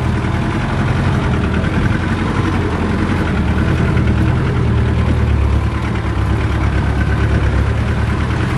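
Off-road vehicle's engine running steadily at low revs on a rough dirt track, heard from inside the cabin.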